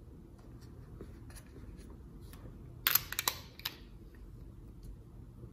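Parts of an FK Irons Xion rotary tattoo pen clicking as they are handled and twisted together, with a quick cluster of sharp clicks about three seconds in and faint small clicks around it.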